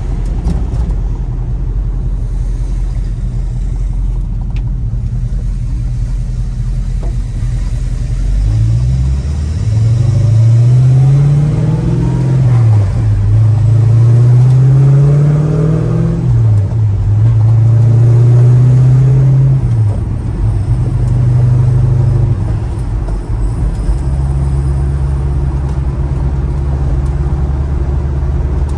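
1965 Pontiac GTO V8 engine running with a steady low note, then revving up and down about three times, the pitch climbing and dropping back, before settling to a steady note again near the end.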